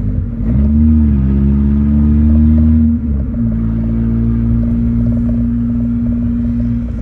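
Chevrolet Corsa car engine with an open exhaust diffuser, accelerating. The revs climb and it gets louder about half a second in, the pitch dips briefly about three seconds in, then the engine runs at a steady pitch.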